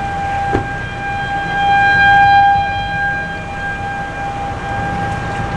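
Federal Signal 2001-130 rotating outdoor warning siren sounding its Alert signal: one steady, unwavering tone. It swells in loudness about two seconds in as the rotating head sweeps past, then eases off. A low rumble sits underneath.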